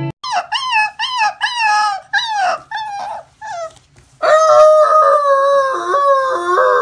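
Husky puppies howling: a run of about eight short, high, falling yips, then from about four seconds in one long wavering howl a little lower in pitch.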